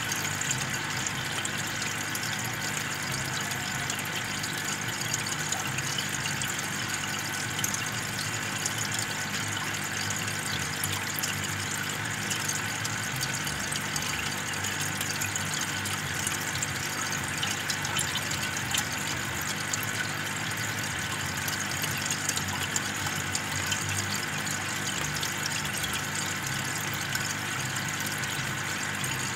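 Aquarium aeration: an air stone bubbling steadily under water, with the steady low hum of the electric air pump that feeds it.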